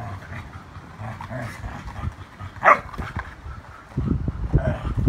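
Two dogs playing tug-of-war over a stick: one sharp bark about two and a half seconds in, then low, rough growling in the last second.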